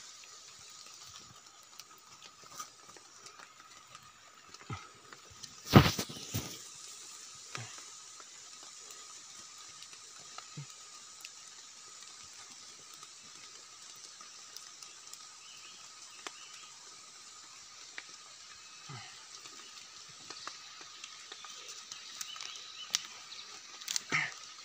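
Rustling of leaf litter and scattered small clicks and snaps as wild mushrooms are picked by hand from the forest floor, with one sharp knock about six seconds in and a few more near the end. A faint steady high tone runs underneath.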